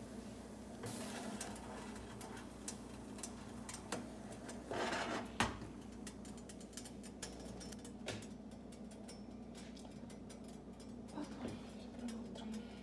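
Faint kitchen handling sounds: scattered light clicks and clinks of dishes and cutlery, with a short rustling patch and a sharper knock about five seconds in.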